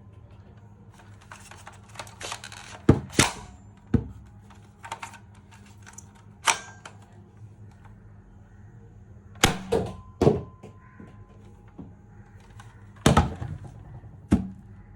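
Sharp plastic clicks and knocks from handling a Nerf Rival Fate XXII-100 blaster. They come in scattered groups of one to three, and a short rushing noise leads into the first group.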